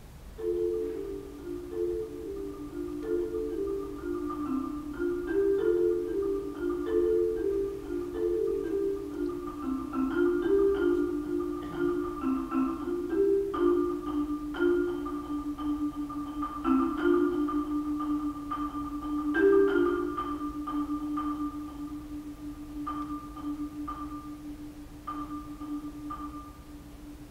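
Solo marimba played with yarn mallets: a repeating pattern of notes in the middle register that settles, about halfway through, onto one long held note, fading toward the end.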